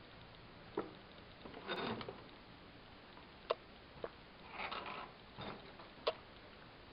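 Scattered sharp clicks and knocks, four in all at uneven intervals, with two short spells of rustling, over a faint steady hiss.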